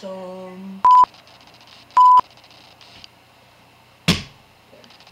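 Two short, loud 1 kHz censor bleeps about a second apart, the first right after a drawn-out voice sound. A single thump comes about four seconds in.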